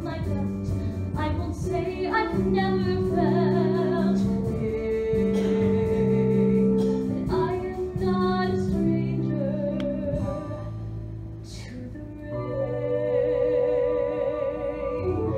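A young woman singing a solo musical-theatre ballad over instrumental accompaniment, with a long vibrato note held near the end.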